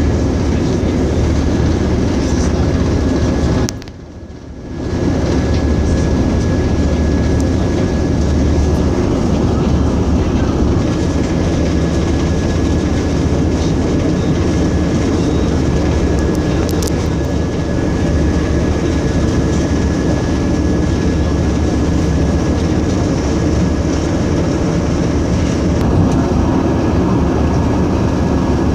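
Steady rumble and running noise of a passenger train travelling at speed, heard from inside the carriage, with a thin steady whine running through it. The noise drops sharply for about a second around four seconds in, then returns.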